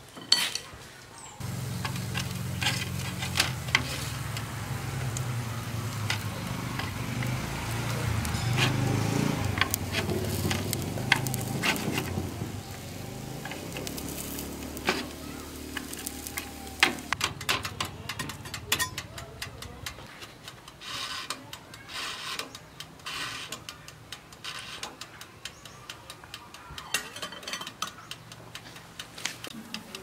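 Rice cakes sizzling on a foil-lined tray in a small electric toaster oven, with chopsticks clicking and scraping against the tray and the oven. A low hum runs beneath and stops about twenty seconds in.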